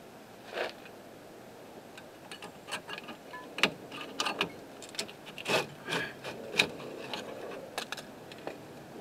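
Rusty disc brake caliper on a 2006 Nissan Sentra being worked loose by hand from its bracket and rotor: a single scrape under a second in, then irregular metal clicks and scrapes from about two seconds in.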